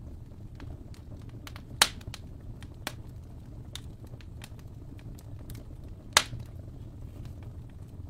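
Wood fire crackling in a fireplace: a steady low rumble from the flames with scattered small pops, and two sharp, loud pops, one near two seconds in and one just after six seconds.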